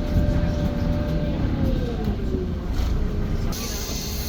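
Menarinibus Citymood 12 CNG city bus heard from on board: a steady low rumble from the ride and the heavily soundproofed engine, with a faint whine falling in pitch. A hiss starts about three and a half seconds in.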